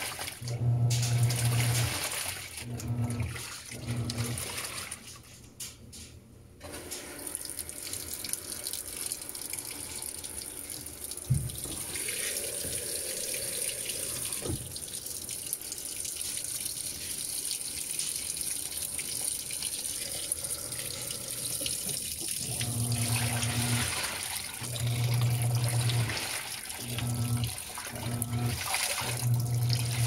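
Panasonic 16 kg top-load washing machine agitating: the motor hums in short on-off strokes as the water and clothes slosh, then pauses for about two seconds. Water then pours steadily into the drum, and about three-quarters of the way through the agitating strokes start again while the water keeps running.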